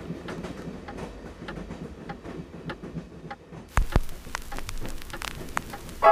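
Wind-up horn gramophone being made ready: scattered faint clicks as it is handled, then a thump about four seconds in as the soundbox needle is set down on the spinning record, followed by the crackle of the needle running in the groove.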